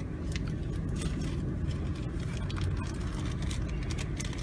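Steady low rumble of a car heard from inside the cabin, with scattered small clicks and rustles of handling close by.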